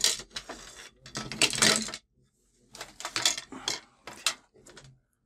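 Irregular clattering and rustling as small hard parts and tools are handled on a workbench, with a pause of about half a second around the middle.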